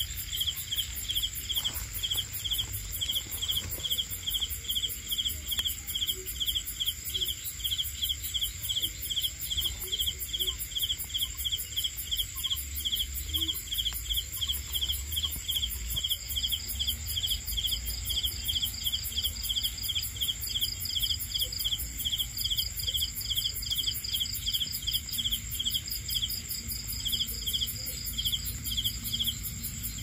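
A night chorus of crickets and other insects. One chirps steadily at about two to three chirps a second over a continuous high-pitched drone, and a second, faster pulsing call joins about halfway through.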